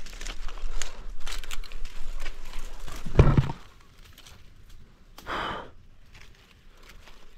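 Branches and dry leaves rustling and crackling as someone climbs through a thicket, with a loud thud about three seconds in. A little past five seconds comes a man's heavy breath out.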